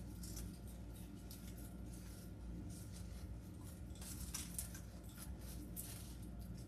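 Faint, irregular rustling and crinkling of artificial flowers, leaves and ribbon being handled and pushed into a wreath, over a low steady hum.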